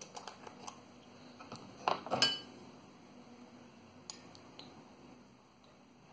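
Small handling clicks and clinks of a glass sauce bottle, its metal screw cap and a metal spoon, the loudest a sharp clink with a short ring about two seconds in, then a few faint ticks.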